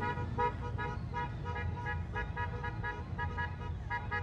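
A horn beeping in quick short toots of one steady pitch, about four a second, over the low rumble of motorcycles riding slowly.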